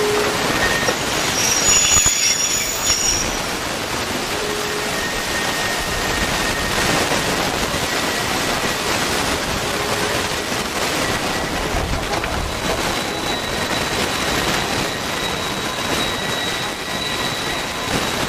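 Railway car rolling along the track with a steady rumble and a high wheel squeal about two seconds in, followed by a fainter thin whine that comes and goes.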